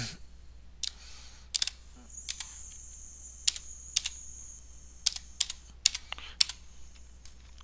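Typing on a computer keyboard: about a dozen separate key clicks at an uneven pace as a word is typed.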